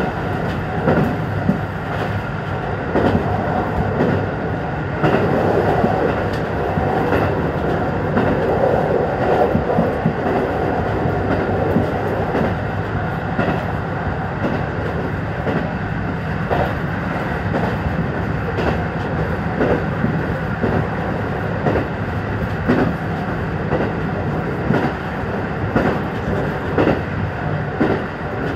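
KiHa 150 diesel railcar running along the line, heard from inside the driver's cab. The diesel engine hums steadily while the wheels click over rail joints at uneven intervals.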